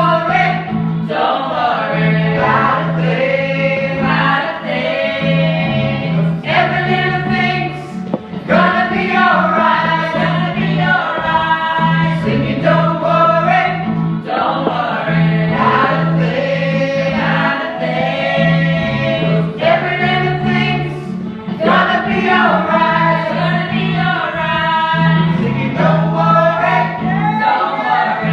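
Choir singing a gospel song over a steady, repeating low bass line.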